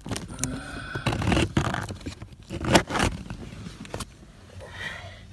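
Old pleated cabin air filter being squeezed and pulled out of its housing: scraping and rustling with several sharp clicks, going quieter about four seconds in.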